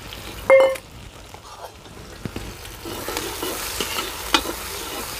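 Chopped onions sizzling in hot mustard oil in an iron kadhai, stirred and scraped with a steel ladle. There is a short ringing metal clank about half a second in, and a few sharp knocks of the ladle later. The sizzle grows louder in the second half.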